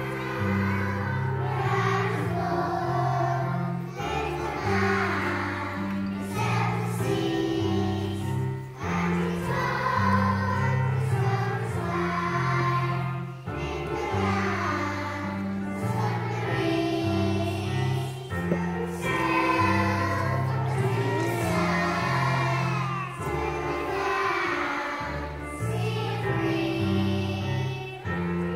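A group of young children singing a song together over a musical accompaniment of steady held chords, the song going on in phrases with short breaks between them.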